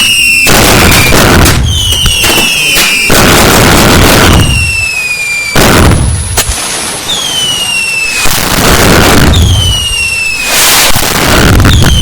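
Fireworks going off densely with loud bangs and crackle, over which whistling fireworks sound about six times, each whistle falling in pitch over about a second.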